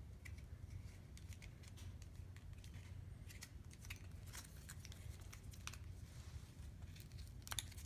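Faint scattered clicks and light rustling of cardboard and plastic packaging being handled, over a low steady hum, with a few sharper clicks near the end.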